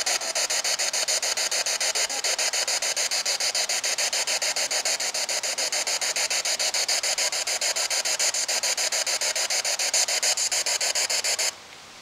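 Spirit box sweeping through radio stations: loud, rapidly chopped static hiss in quick, even pulses. It cuts off suddenly just before the end.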